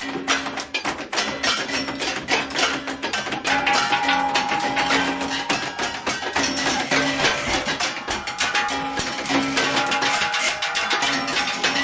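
Fast, dense drumming on kitchen objects, played with hands and utensils, with held pitched notes sounding underneath in stretches.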